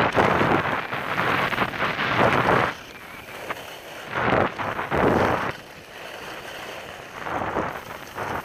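Rushing noise of downhill skiing: skis hissing and scraping over packed snow, mixed with wind on the microphone. It is loud and continuous for the first few seconds, then comes back in two shorter surges, about halfway through and near the end.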